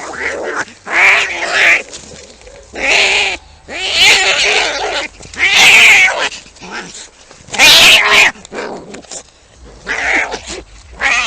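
Domestic cats fighting: a run of loud yowls and screeches, about six in all, with quieter stretches between them.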